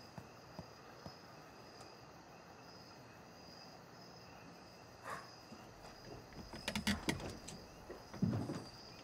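Crickets chirring faintly and steadily in a quiet background. From about two-thirds of the way through, a run of sharp knocks and clatters, growing louder.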